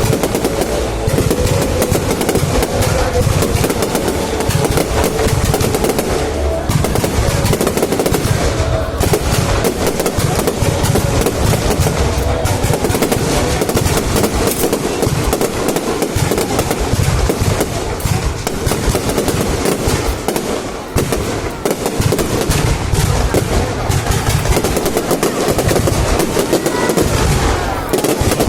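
Fireworks display going off in a dense, continuous barrage of rapid bangs and crackles that overlap with no pause.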